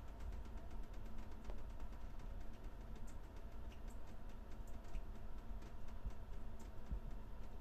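Shower water turned down to a low flow, drops pattering in many quick, irregular ticks over a steady hiss.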